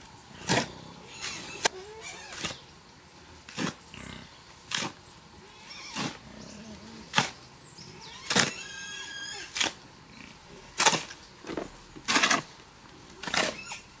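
Repeated strikes of a tool in building work, about one blow a second at an even pace. A short, high pitched call sounds once about halfway through.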